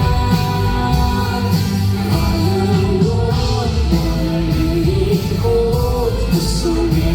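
Live rock band playing at full volume, a gliding melody line carried over guitars, bass and drums.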